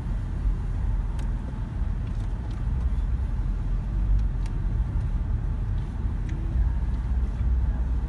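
Low steady rumble of a car's engine and road noise heard from inside the cabin while it moves slowly in traffic, with a few faint scattered ticks.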